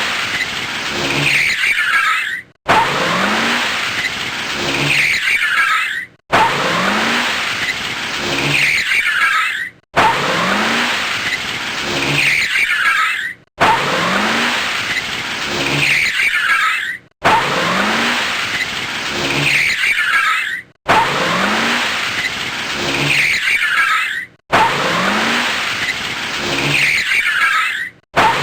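Car tires screeching, repeated about every three and a half seconds. Each screech is a loud rush of tire noise with a squeal that falls in pitch and then cuts off abruptly.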